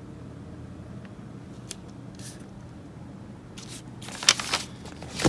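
Paper sheets rustling and crinkling as they are handled: a few faint rustles, then a louder crinkle about four seconds in, over a steady low hum.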